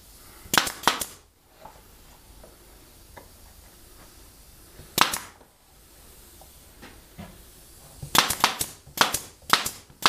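Pneumatic brad nailer firing brads into a half-inch plywood rim strip, each shot a sharp crack. There are three quick shots about half a second in, a single shot near the middle, and a fast run of about half a dozen shots near the end.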